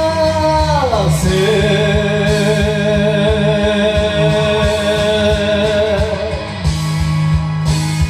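A singer holds the final long note of the song over a rock-band karaoke backing track with guitar. The note slides down about a second in and is then held with vibrato for about five seconds before it stops, leaving the band playing on.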